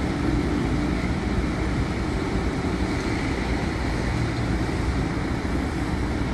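Diesel engine of a Mercedes-Benz O500RSDD double-decker coach (Marcopolo Paradiso G8 1800 DD) running steadily as the coach pulls slowly away, a low rumble under an even hiss.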